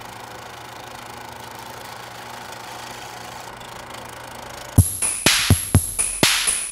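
A steady low hum, then about five seconds in a drum-machine beat starts abruptly with sharp, evenly spaced hits, opening the song.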